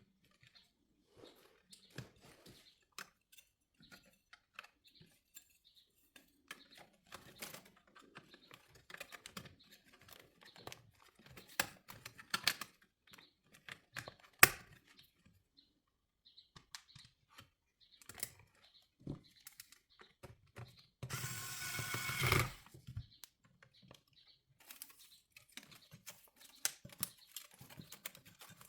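Scattered small clicks and taps of plastic wiring connectors and dash trim being handled and plugged in, with one louder rustling scrape lasting about a second and a half about two-thirds of the way through.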